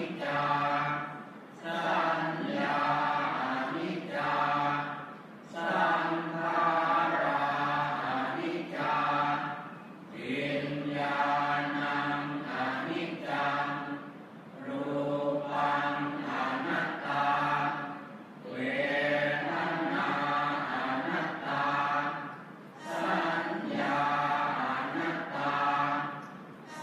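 Thai Buddhist monks and lay congregation chanting the morning service in unison, a low, level, droning chant in phrases of a few seconds each, with brief pauses for breath between them.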